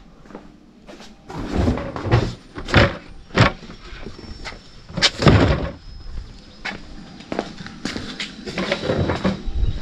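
Cardboard boxes of full plastic gallon jugs being lifted, carried and set down: a string of irregular thumps and knocks, with the cardboard scraping and rustling between them.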